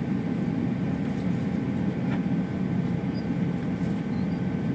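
Steady low rumble and hum of an Airbus A321's cabin, with a few faint steady tones above it.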